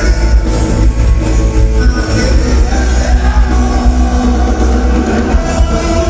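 Loud live rock music from an amplified band, with a heavy bass line and dense instruments throughout.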